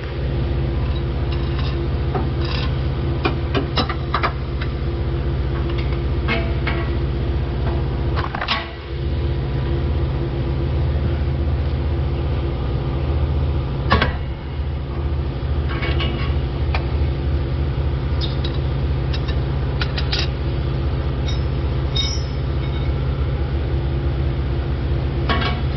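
Pneumatic air hammer running in long bursts, a loud rapid hammering against a rust-seized oxygen sensor to knock it loose. It stops briefly about a third of the way in, with sharp metallic knocks scattered through it.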